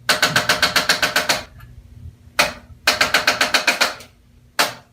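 Impulse adjusting instrument firing rapid trains of sharp mechanical taps against the neck during a cervical extension adjustment. There are two quick bursts of about nine clicks a second, each lasting about a second, with a single click after each burst.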